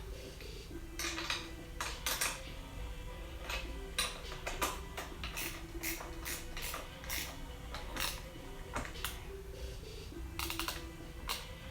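Repeated light metallic clicks and clinks of small bolt-and-nut hardware and hand tools being handled while a mirror is fitted to a handguard, with background music underneath.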